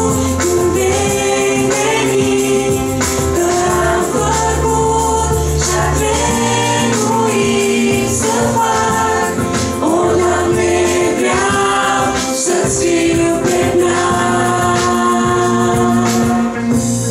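A woman sings a Christian song into a handheld microphone over instrumental accompaniment, with held bass notes that change every couple of seconds and light percussion.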